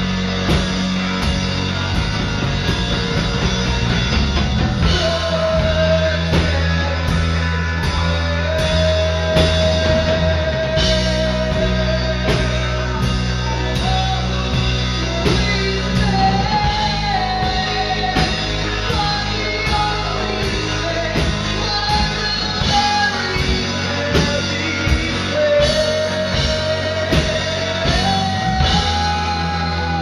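Rock band playing: electric guitar, bass and drum kit on a steady beat, with a singer holding long notes.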